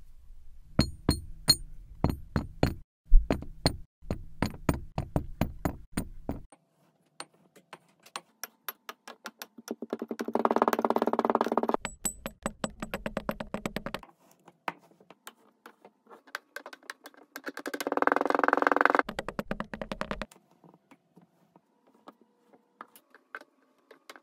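Chunks of kinetic sand dropping into a glass tumbler with a run of quick soft thuds and clicks, then the sand being squished down with a wooden tamper, a dense crunching crackle in two spells about ten and eighteen seconds in.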